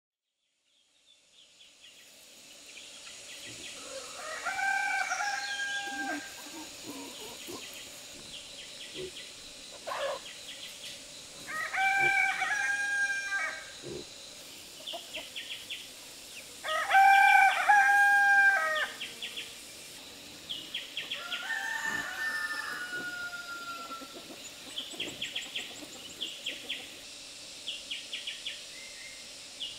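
Rooster crowing four times, each crow about two seconds long, over short chirps repeating in quick runs.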